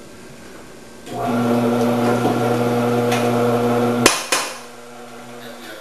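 Electric commercial vegetable cutter's motor switched on about a second in and running with a steady hum for about three seconds. It is then switched off with a sharp click, and the hum fades out over the next second and a half as the cutting disc spins down.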